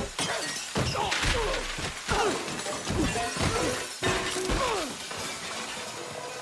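A rapid run of crashes, smashes and breaking impacts from film sound effects, about one or two a second, with short falling tones among them. It thins out near the end.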